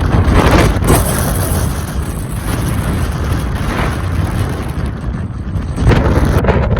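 Strong, gusty wind buffeting the microphone with a heavy rumble, easing in the middle and surging again near the end.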